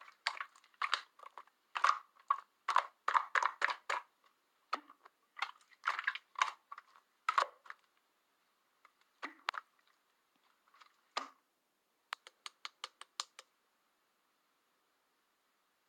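Slime being squished and poked by hand: irregular sticky squelches and crackling pops, then a quick run of about seven sharp clicks late on.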